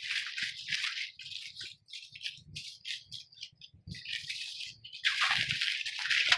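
Irregular dry rustling and rattling noises, several a second, getting denser and louder about five seconds in.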